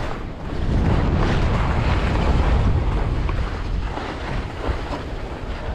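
Wind buffeting the microphone of a skier's camera during a fast downhill run, a heavy rumble throughout, with skis hissing and scraping over snow in swells as they turn.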